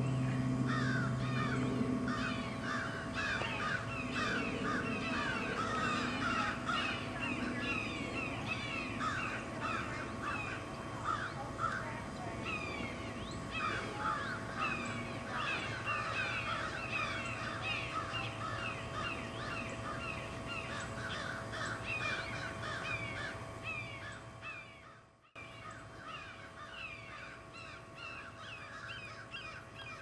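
A dense chorus of wild birds calling, with crows cawing: many short, overlapping calls over a faint steady hum.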